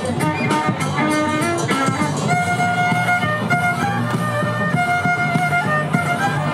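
Violin played with the bow: a melody of held notes stepping from pitch to pitch, over a steady lower accompaniment.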